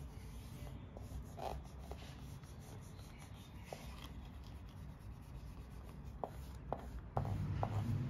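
A flat plastic scraper rubbing and sliding across an iPad's glass screen protector, with a few light ticks as it catches on the edge. A low steady hum comes in near the end.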